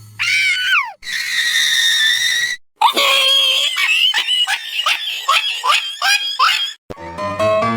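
Shrill screaming. First a short falling squeal, then a long steady scream, then a rapid string of short falling squeals at about two a second. Piano music comes in near the end.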